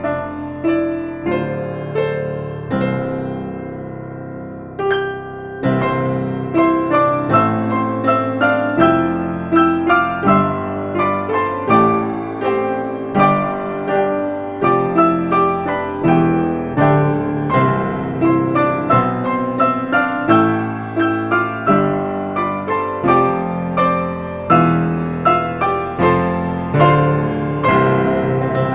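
Piano music: notes struck one after another and left to fade, a sparser stretch about four seconds in, then a busier run of notes.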